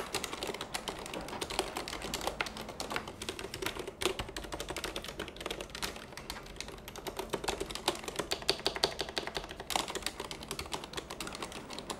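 Continuous fast typing on a full-size mechanical keyboard with low-noise (silent) red linear switches: a dense, unbroken stream of key strokes. The keys are struck fairly hard and bounced off.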